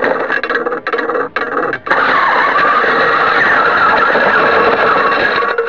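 RC car running at speed, its motor and drivetrain noise loud and rough on the onboard camera's microphone. It cuts in and out for the first two seconds, with a sharp click at about two seconds, then runs steadily.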